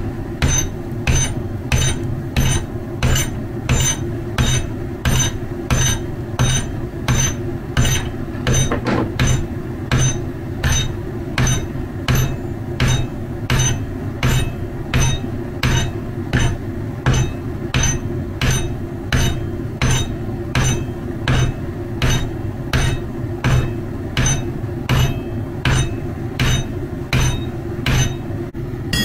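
Hand hammer forging steel on an anvil: a steady run of blows, about three every two seconds, each ringing briefly.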